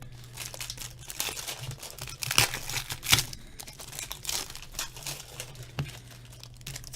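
Foil wrappers of hockey card packs crinkling and tearing as packs are opened and handled, in irregular crackles with a couple of louder rips about two and a half and three seconds in. A faint steady low hum runs underneath.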